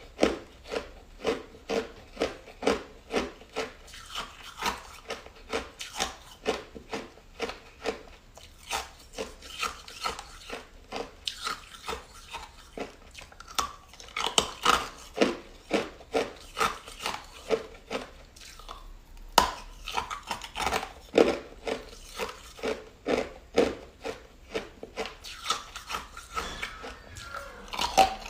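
A person chewing ice with steady, rapid crunches, about three bites a second, the ice cracking between the teeth.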